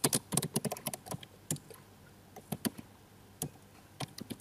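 Computer keyboard typing: a quick run of keystrokes in the first second or so, then a few scattered single key presses.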